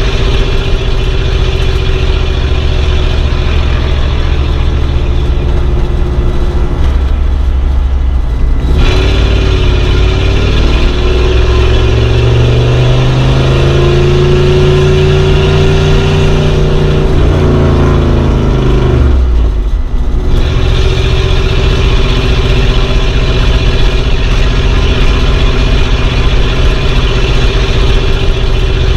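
Old car's engine running while driving. It runs steadily, dips at about seven seconds, then climbs and holds a higher note as the car accelerates. It drops sharply around twenty seconds, as at a gear change, before settling back to steady running.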